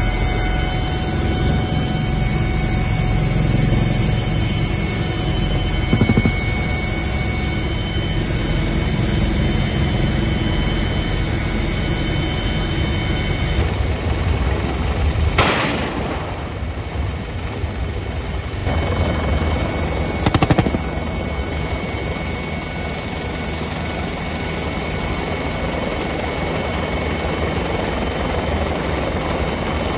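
Helicopter in flight: steady rotor and turbine noise with high turbine whine tones. There are two short, louder bursts of noise near the middle.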